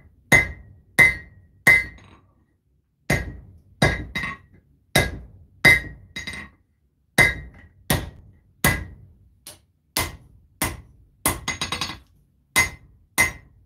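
Hand hammer striking a hot steel knife blade on an anvil: about eighteen blows at a steady one and a half a second, each a sharp metallic strike with a short ring, with a brief pause about two seconds in and a quick rattle of light taps near the end.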